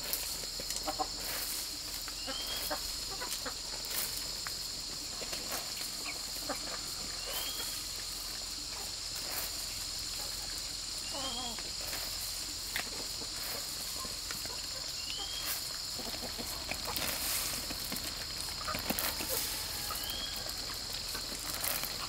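Farmyard ambience: chickens clucking now and then over a steady high-pitched insect drone, with a short rising chirp repeating every two to three seconds.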